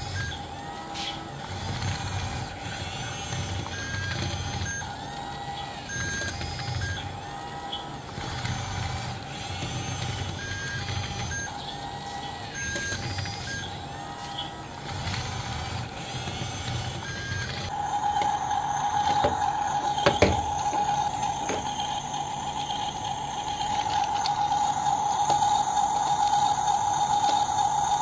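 Radio-controlled toy bulldozer running with its small electric motors humming as it moves, over a repeating electronic beep from the toy. About two-thirds of the way through, the beeping gives way to a steady high electronic tone, with a couple of sharp clicks shortly after.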